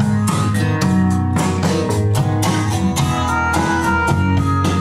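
Music with a steady beat of evenly repeated strikes.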